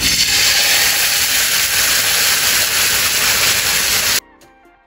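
Potato dosa batter sizzling with a loud, steady hiss as it is poured onto a hot, oiled tawa. The sizzle cuts off suddenly about four seconds in, leaving faint background music.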